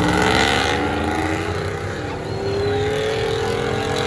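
Motor vehicle engine accelerating, its pitch rising steadily for a couple of seconds and easing off near the end, with a short rush of noise at the start.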